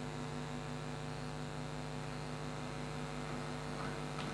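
Steady low electrical hum made of several even, unchanging tones. It does not change as the model locomotive pulls away, with a few faint ticks near the end.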